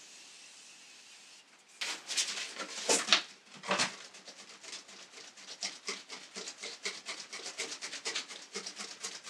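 A faint steady hiss of a continuous setting-mist spray that stops sharply about a second and a half in. Then a folding hand fan is flicked open and waved quickly in front of the face. It makes a few louder swishes, then a rapid run of smaller swishes and flaps, about four a second.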